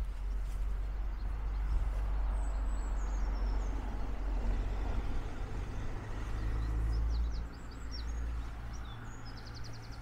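Outdoor ambience dominated by a steady low rumble that eases a little near the end, with small birds chirping faintly above it a few times and a short rapid trill near the end.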